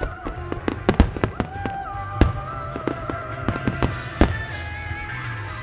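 Starmine barrage of large aerial firework shells bursting, several booms a second, thinning out about four seconds in, with music playing underneath.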